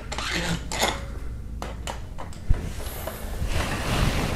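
Metal clinks and scrapes of a hand tool, a cylinder-head bolt and its loose washer being worked out at the end of a Hyundai 2.4 GDI cylinder head. There are a few sharp knocks, and denser scraping and rattling near the end.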